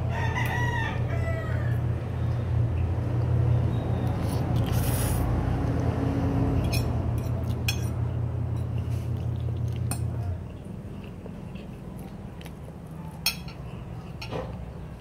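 A short animal call that bends up and down in pitch in the first second and a half, over a steady low hum that cuts off about ten and a half seconds in; a few sharp clicks follow.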